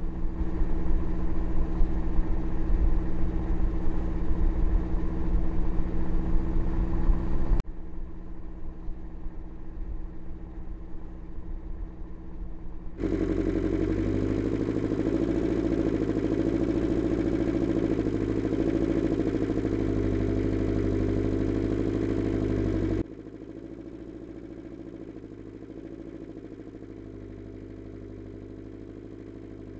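Land Rover Discovery 2 engine running steadily as the vehicle drives slowly in. The level jumps abruptly at cuts about 8, 13 and 23 seconds in, and the sound is loudest in the middle stretch.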